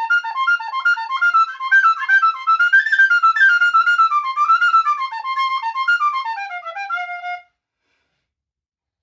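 Solo tin whistle playing a quick, ornamented Irish folk-style melody, ending on a held low note.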